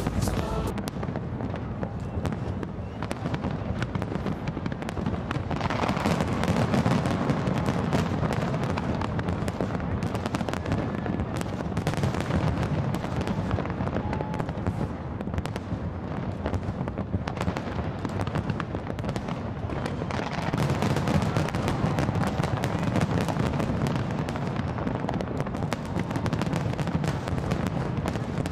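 Aerial fireworks display: a continuous, dense barrage of shell bursts and crackling, with no pause.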